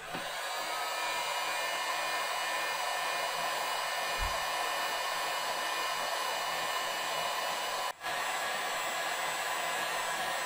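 Heat gun blowing steadily with a fan whine, shrinking heat-shrink tubing over the wand's soldered joints; the sound drops out briefly about eight seconds in.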